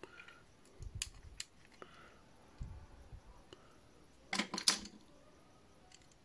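Small hard plastic parts of a Transformers action figure clicking and knocking as they are handled and fitted together. The clicks are scattered and light, with a louder cluster of several clicks about four and a half seconds in.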